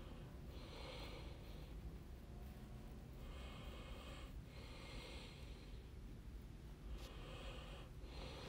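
A person's faint breathing close to the microphone: a few soft nasal breaths, each under a second, over a low hum.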